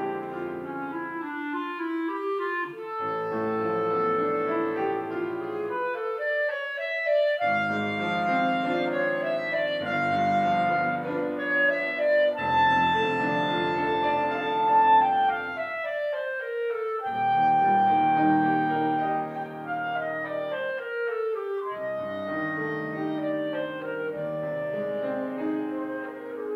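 Solo clarinet playing a classical melody with grand piano accompaniment, in phrases that sweep up and down in pitch, with a long held high note about halfway through.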